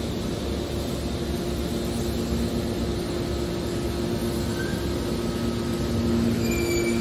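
Hydraulic waste metal baler running: a steady mechanical drone with a constant low hum, typical of its hydraulic pump and motor.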